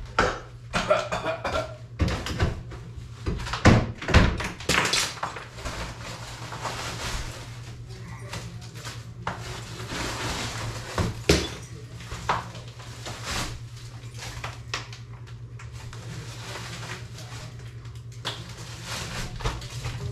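Ceiling demolition: irregular knocks, cracks and clatters of ceiling material being pulled down and falling, thickest in the first several seconds, over a steady low hum.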